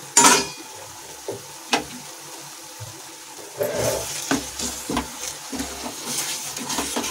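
A spoon stirring and scraping thick spinach and sweet-corn saag in a nonstick kadai, with small knocks against the pan, starting about halfway through. Before that the saag simmers quietly, after a sharp clank at the start.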